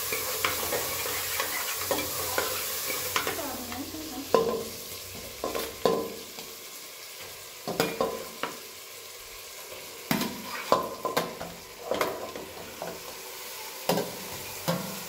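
Food frying and sizzling in a pot while a utensil stirs and scrapes against it in irregular clattering strokes. The sizzle is strongest in the first few seconds and then dies down under the stirring.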